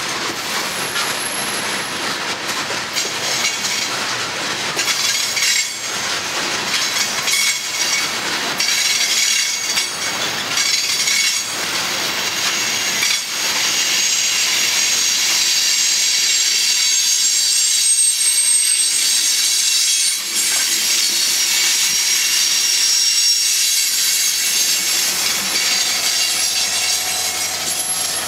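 Coal hopper cars rolling past on steel wheels, clicking over the rail joints in the first half. Later their wheels squeal in thin, high steady tones over a continuous rail hiss. Near the end the diesel engine of the rear distributed-power locomotive, an EMD SD70ACe, adds a low hum.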